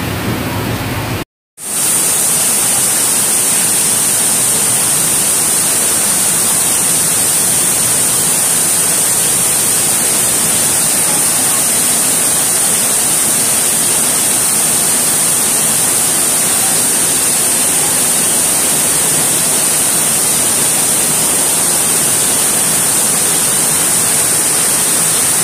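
A loud, steady rushing hiss of heavy rain and running floodwater, broken by a brief dropout about a second in.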